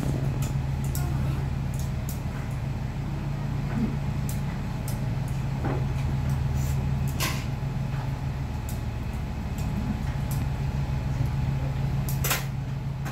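Ramen-shop kitchen at work: a steady low hum of kitchen equipment under scattered clinks and clatters of metal utensils, pots and steel containers, with the sharpest clatters about seven seconds in and again about twelve seconds in.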